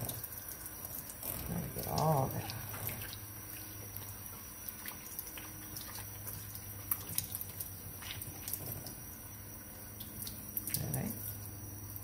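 Water spraying from a kitchen sink's pull-down sprayer onto a wet dog, with splashing and dripping into the sink. A brief voice-like sound comes about two seconds in.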